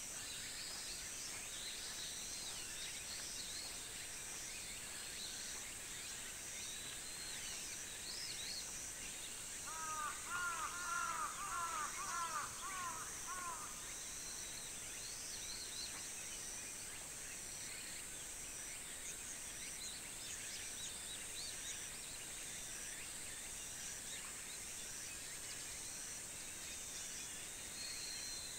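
Rural summer-morning ambience: a steady high insect drone with a pulsing insect trill above it, and scattered small bird chirps. About ten seconds in, a bird gives a louder run of quick repeated calls lasting about three seconds.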